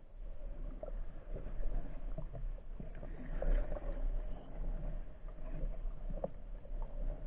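Muffled underwater water noise picked up by a submerged camera: a low, steady rumble of moving water with scattered faint clicks and knocks.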